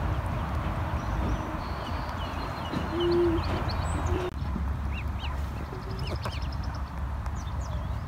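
Mallard ducklings peeping in thin, high arched calls, mostly in the second half, over a steady low rumble and hiss. A short, low, hooting note about three seconds in is the loudest sound.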